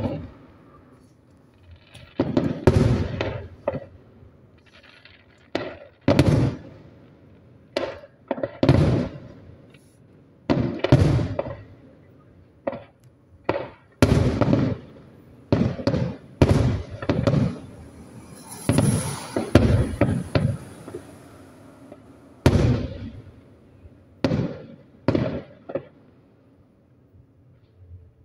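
Aerial fireworks shells bursting in a display: a long, irregular series of booms, one every second or two, each trailing off in echo, with a short lull near the end.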